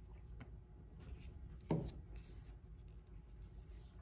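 Faint rubbing and rustling of hands applying a glue stick and folding a craft strip, with one short soft knock about halfway through.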